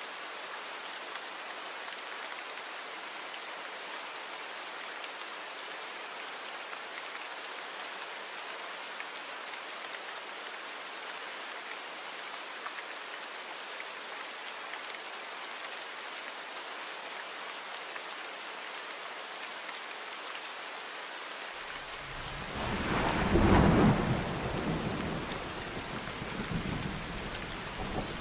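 Steady rain, an even hiss. About three quarters of the way through, a roll of thunder rumbles in suddenly, loudest a couple of seconds after it starts, then goes on rumbling more weakly under the rain.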